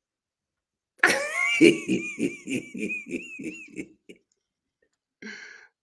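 A man laughing heartily: a rhythmic run of about ten 'ha' pulses, about three a second, that starts after a second of silence and dies away, then a short breath near the end.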